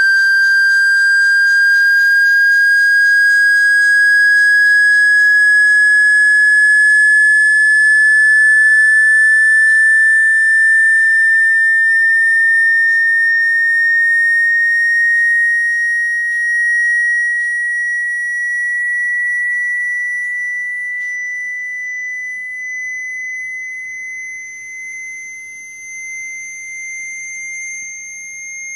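Synthesized sine tone, a high whistle slowly rising in pitch, played as a phone-speaker cleaning tone meant to shake water or dust out of the speaker. It gets quieter over the second half.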